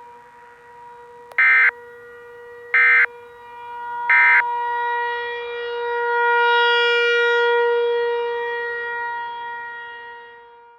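Civil defense siren sounding one steady tone that swells and then fades, as a rotating siren does, before cutting off abruptly. Over it, three short identical digital data bursts about 1.3 seconds apart: the Emergency Alert System end-of-message code that closes an alert.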